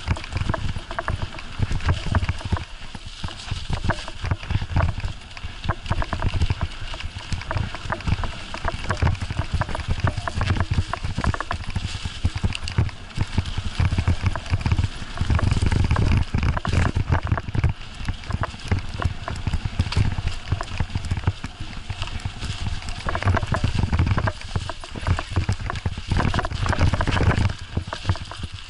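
Bicycle riding over a snowy, bumpy forest trail: a constant run of knocks and rattles from the bike jolting over the ruts, with low wind rumble on the microphone that swells and fades.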